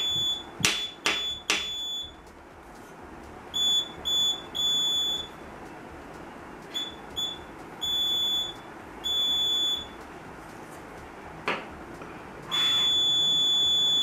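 Buzzer of a homemade laser tripwire alarm sounding one high steady tone in uneven beeps, short and long, each time the laser beam to its light sensor is blocked, then a long tone of about three seconds near the end. A few sharp taps in the first two seconds and one more about three-quarters of the way through.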